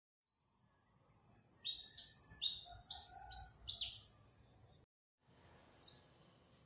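Birds chirping in a quick run of short falling notes over a steady high-pitched whine. The sound cuts out briefly about five seconds in, then fainter chirps carry on.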